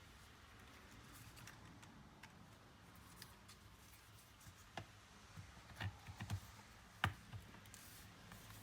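Faint, scattered clicks and light knocks from laptop parts being handled, with a small cluster of knocks and a sharper click near the end.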